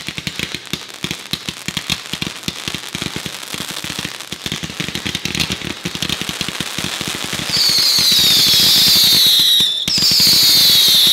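Consumer fireworks: a dense, rapid crackling for about seven seconds, then two loud shrill whistles, each about two seconds long and falling slightly in pitch, with a brief gap between them.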